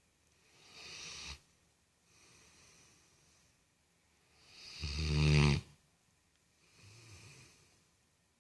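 A dog snoring: four snores about two seconds apart, the loudest a deep, pitched snore about five seconds in, the others softer and breathier.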